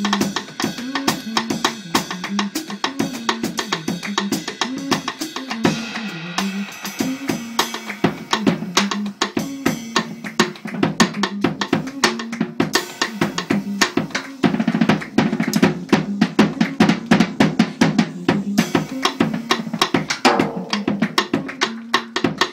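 Live jazz drum kit played busily with sticks: a dense, fast stream of snare, rim, bass-drum and cymbal strikes, over a low repeating melodic line.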